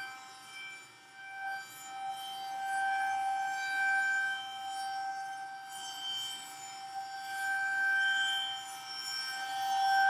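Federal Signal Model 2001 rotating tornado siren sounding a steady tone during a test. Its pitch holds level while the volume swells and fades twice, about four seconds apart, as the rotating horn sweeps past.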